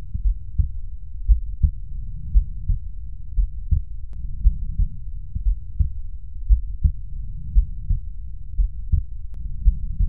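Normal first and second heart sounds picked up through an electronic stethoscope at the pulmonary focus: paired low thumps, lub-dub, about one beat a second, steady throughout.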